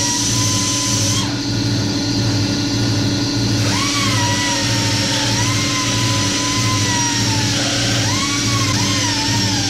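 Air-powered die grinder running against the steel hanger bracket, opening out the bolt holes. Its whine wavers and dips in pitch as the bit bites and eases off, over a steady low hum.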